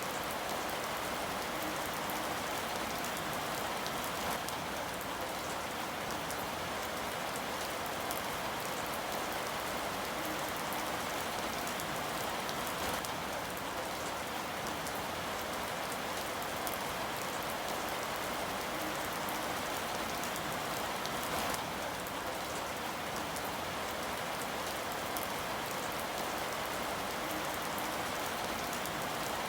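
Steady rain falling on a surface: an even hiss with scattered individual drops.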